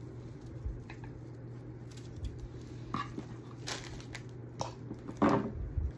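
Light rustling, small clicks and taps as craft materials such as a hula-skirt fringe are handled on a work table, with a louder rustle about five seconds in.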